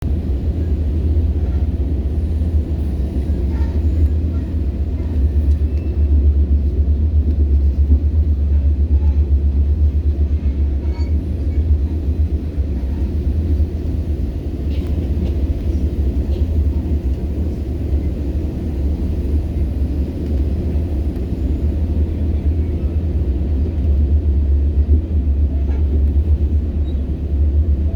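Passenger train running, heard on board: a steady low rumble with a few faint scattered clicks and rattles.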